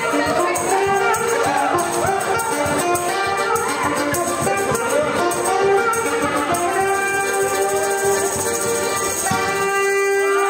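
Live wedding band playing a fast dance tune with accordion and tambourine to a steady beat. About nine seconds in, the beat stops and the band holds one long final chord.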